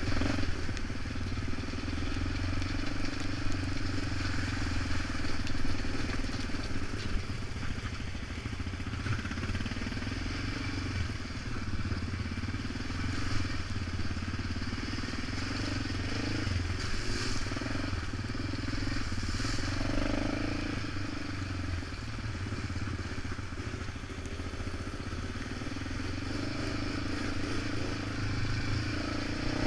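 ATV engine running at a steady trail speed, with tyre noise on wet gravel.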